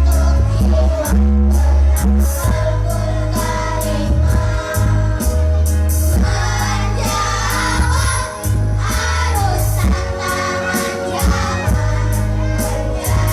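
Children's choir singing in unison over a musical accompaniment with a heavy bass and a steady beat.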